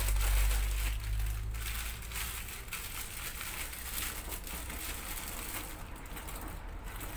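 Crinkly plastic wrapper of a pack of kedi dili (ladyfinger) biscuits crackling and rustling as it is opened and the biscuits are slid out.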